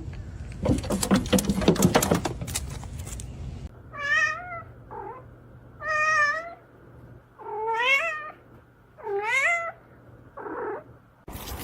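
A pet making six short meow-like calls, each under a second and bending up and down in pitch, two of them weaker. They follow a few seconds of rustling and clicking.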